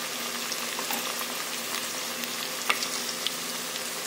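Masala-coated chicken lollipops deep-frying in hot oil on a low flame: a steady sizzling hiss with scattered crackles and one sharper pop past halfway.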